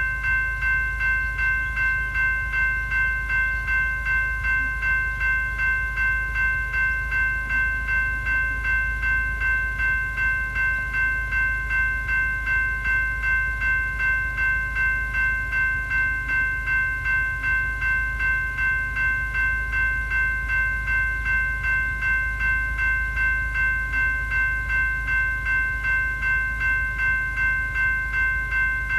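General Signals Type 2 electronic level-crossing bell ringing steadily: a rapid, evenly repeating electronic ding, the warning that the crossing is active.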